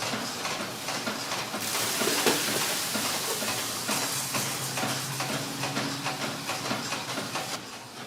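Factory machinery running: rapid clicking over a steady hiss, with a low hum joining about halfway through.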